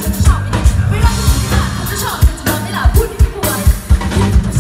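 Live pop-rock band playing: a woman sings into a microphone over drum kit, bass guitar, electric guitar and keyboard, with a steady drum beat.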